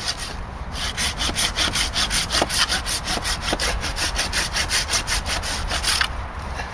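Fiskars pull saw cutting through a green wooden pole in fast, even strokes, about four or five a second, with a brief pause shortly after the start and another near the end.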